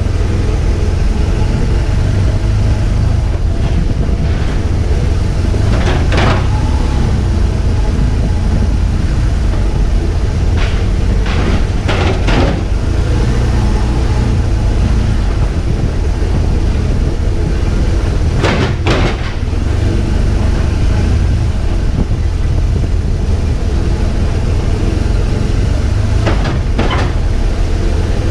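BMW R1200GS boxer-twin engine running at low speed, a steady low rumble, with a few short knocks or clicks scattered through it.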